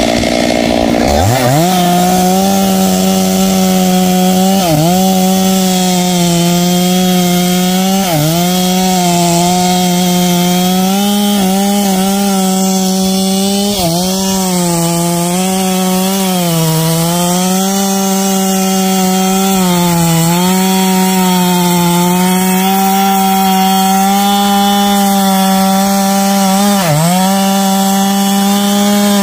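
Stihl two-stroke chainsaw revving up to full throttle about a second in, then cutting through trembesi (rain tree) wood at high revs. Its pitch dips briefly every few seconds as the chain loads up in the cut.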